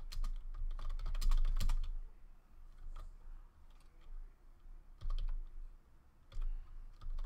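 Typing on a computer keyboard: a quick run of keystrokes over the first two seconds, then short bursts of a few keys separated by pauses.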